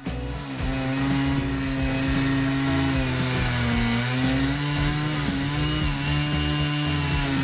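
A power tool's motor running steadily, its pitch dipping briefly a couple of times as it takes load.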